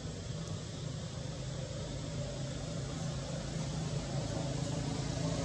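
Steady hum of an engine running in the background, growing slowly louder toward the end.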